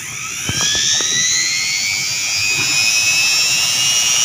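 Rewound juicer motor, a brushed universal motor with an aluminium-wire armature, spinning up on a series test connection: a high whine rises in pitch over the first second or so, then runs steady.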